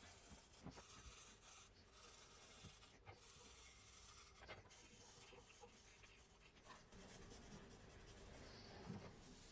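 Faint scratching of a felt-tip permanent marker rubbed back and forth over a steel blank cut from an old saw blade, inking its surface, with a few light taps of the tip or blank against the bench.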